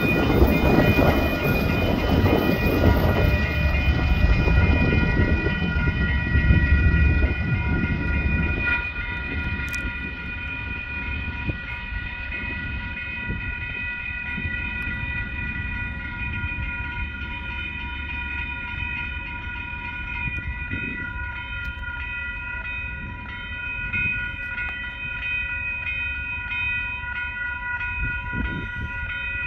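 Railroad grade-crossing bells ringing steadily over the rumble of a passing train. The rumble is loud for the first nine seconds or so, then drops to a lower, steady level.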